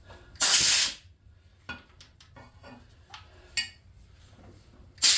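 Two short hissing blasts of a spray or air jet, about half a second each, one near the start and one near the end, with light metallic clinks of tools between.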